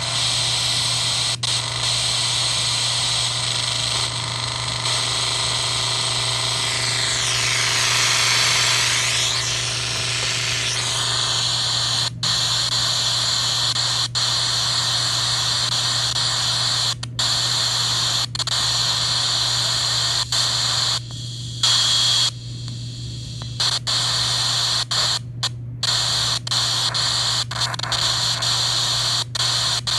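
Radio static hiss from a software-defined radio receiver tuned across empty UHF channels, with a steady hum underneath. About eight seconds in, wavering sweeping tones rise through the noise for a few seconds, and the hiss cuts out briefly several times, longest a little past twenty seconds.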